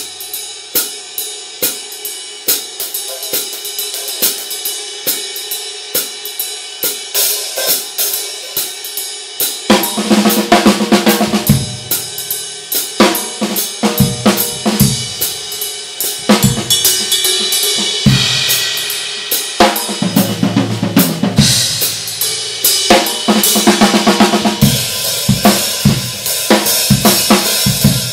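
Paiste 2002 Sound Edge 14-inch hi-hats and 2002 22-inch ride cymbal played on a drum kit. For about the first ten seconds a steady cymbal pattern plays alone. Then the bass drum, snare and other drums join in a full groove with louder cymbal washes.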